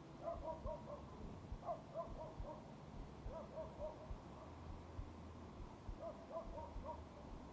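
Faint animal calls: short hooting notes in quick groups of three or four, repeated several times, over a low steady hum.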